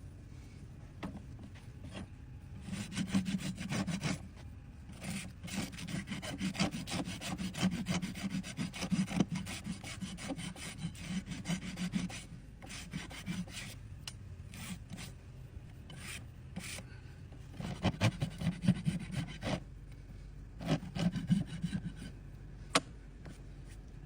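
Farrier's rasp filing down a horse's overgrown hoof in runs of quick back-and-forth strokes, with short pauses between the runs. A single sharp click comes near the end.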